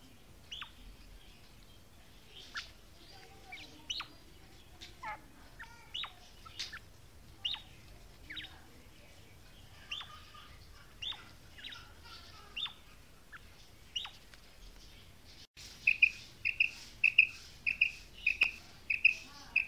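Bird chirps: short notes falling in pitch, scattered irregularly every second or so. About fifteen seconds in, after a cut, a quail calls in a louder, regular run of short high notes, about two to three a second.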